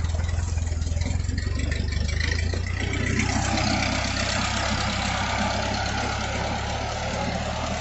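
Ford 8N tractor's four-cylinder gasoline engine running steadily at low speed; its note shifts about three seconds in.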